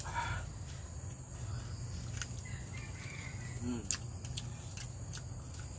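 Steady high chirring of insects, with scattered small clicks from a man eating with his hands, and a short low rising-and-falling sound about two-thirds of the way through.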